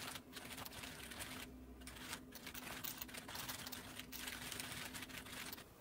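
Fast typing on an MSI GK50 Elite mechanical keyboard: a quick, irregular run of key clicks with a brief pause about a second and a half in, stopping abruptly near the end.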